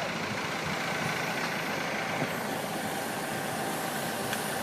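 Heavy vehicle's engine running steadily, with a faint steady whine that comes in partway through.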